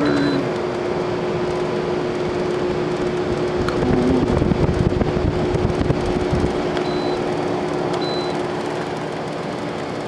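Comfort Aire 15,100 BTU window air conditioner running just after being switched on: steady fan and motor noise with a steady hum that sets in at the start. Its control panel gives short beeps as buttons are pressed, once at the start and twice near the end.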